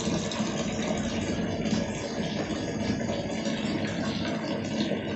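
Filtered water pouring steadily from a PVC outlet pipe into a partly filled steel drum, over a steady motor hum.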